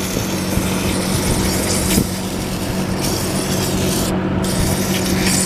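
WD-40 aerosol can spraying in a long, steady hiss, with a short break about four seconds in before it sprays again. A steady low hum runs underneath.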